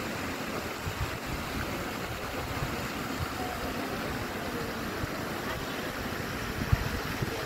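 Outdoor public-square ambience: a steady wash of noise with an uneven low rumble and faint, indistinct voices of people nearby.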